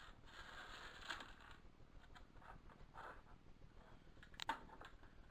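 Faint rustling and a few small clicks of loose hardware, washers and nuts, being handled, with a sharper click about four and a half seconds in.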